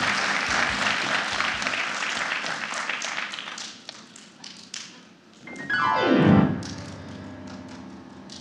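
An audience's applause dies away over the first few seconds, then a piano plays a fast downward glissando about six seconds in, the loudest sound, and rings on quietly.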